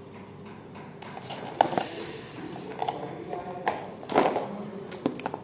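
A plastic-film-wrapped box of dates being handled and turned over in the hands: the wrap crinkles and the container taps, with a louder crackle about four seconds in.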